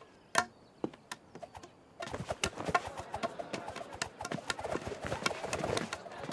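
A few isolated sharp clicks, then, about two seconds in, the noise of a large arena crowd: a dense din crowded with irregular sharp claps and knocks.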